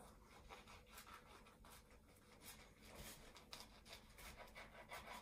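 Faint scratchy rasping of a serrated knife sawing through nori-wrapped sushi rolls, in many quick, irregular strokes.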